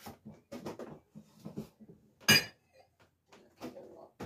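Dishes being handled and set down on a kitchen counter: a string of small knocks and scrapes, with one loud ringing clink a little past two seconds in.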